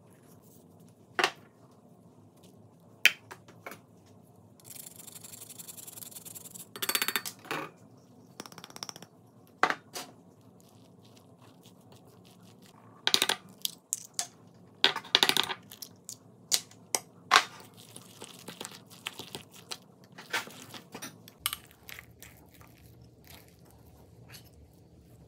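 Metal fork clinking and scraping against a glass mixing bowl as spinach, ricotta and grated cheese are stirred together, in a scattering of sharp clicks. A soft hiss lasts about two seconds near the start.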